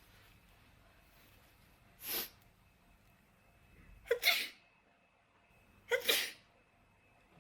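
A woman sneezing three times, about two seconds apart, set off by a swab pushed into her nostril for a nasal Covid test.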